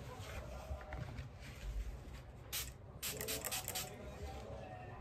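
Short rubbing, hissing noises of pet-care wiping and handling: one a little past two and a half seconds in, then a quick run of several about three seconds in.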